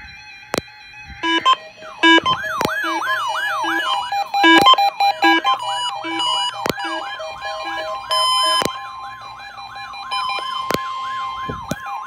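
Several NOAA weather radios alarming at once for a tornado warning: a siren-like whooping tone repeating about two and a half times a second, over short repeating electronic beeps. A steady alert tone grows stronger near the end. Sharp clicks break in now and then.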